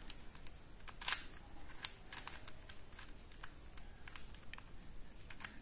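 Plastic pieces of a Super Square-1 twisty puzzle clicking and clacking as its layers are turned by hand: irregular small clicks, with a louder clack about a second in.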